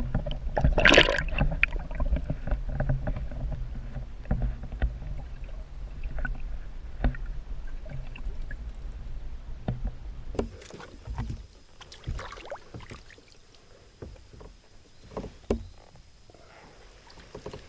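Scattered knocks and handling sounds on a kayak, over a low rumble, while a chain pickerel is fought at the boat and brought in. There is a loud burst about a second in, and the knocks thin out after about ten seconds.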